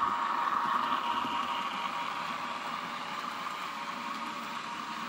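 Dapol N scale Class 50 model locomotive's digital sound decoder playing a diesel engine sound (the English Electric 16CSVT) through its small speaker, mixed with the model's running noise on the track. It is loudest about a second in and fades as the train moves away.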